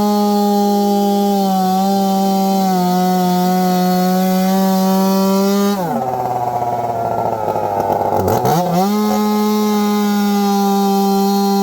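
Chainsaw running at high revs. About six seconds in, its pitch drops sharply and stays low with a rougher sound for nearly three seconds, as the engine bogs down in a cut, then climbs back to full revs.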